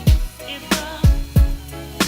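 Background music with a steady beat: deep kick drums that fall in pitch, about three every two seconds, over held chords.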